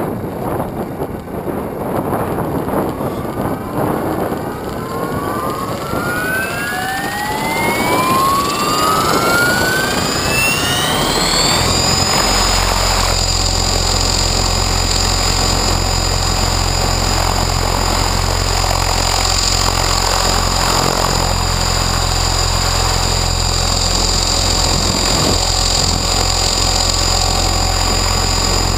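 Electric motor and rotor of an Align T-Rex 600 Pro RC helicopter spooling up on the ground. A whine rises steadily in pitch for about twelve seconds, then holds at a steady pitch with a strong low rotor hum, with wind buffeting the microphone.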